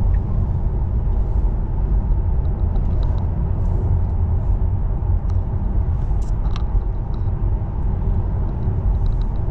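Steady low road and tyre rumble inside a Tesla Model 3's cabin while it cruises at highway speed.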